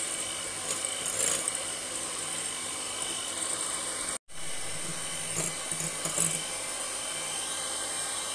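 Moulinex electric hand mixer running steadily, its twin beaters whipping egg whites and sugar into a stiff meringue in a glass bowl. The sound breaks off for an instant about four seconds in.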